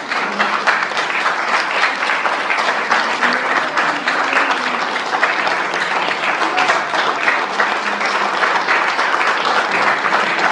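An audience applauding steadily after a poetry recitation, many hands clapping at once.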